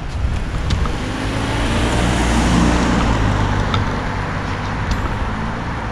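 A car driving past, engine and tyre noise building to a peak near the middle and then fading.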